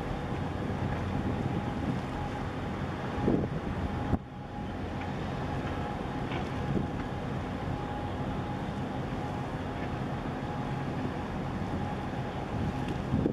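Low steady drone of ship engines as a large container ship passes, under wind buffeting the microphone, with stronger gusts a few seconds in and near the end.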